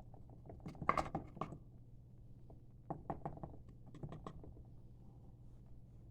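Green sand being packed down by hand in a core box with a small tool: quick light taps and clicks in short clusters, the loudest about a second in, more around three and four seconds.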